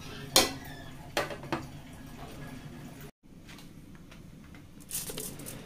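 Pot of sinigang bubbling at the boil on a gas burner, with a few sharp clicks in the first second and a half, the loudest about half a second in. Near the end, a short crinkle of a soup-mix packet being handled.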